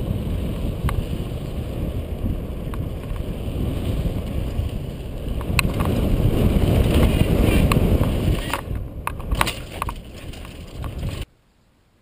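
Mountain bike riding fast down a dirt trail, heard from a camera on the rider: wind rushing over the microphone and tyres rumbling on dirt, with scattered clicks and rattles from the bike over bumps. The sound cuts off suddenly near the end.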